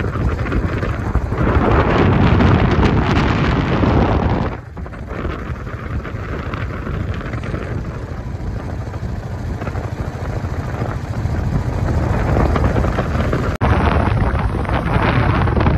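Wind buffeting the microphone of a moving motorcycle, with the bike's engine and road noise running underneath. It dips briefly about four seconds in and breaks off abruptly near the end, then carries on.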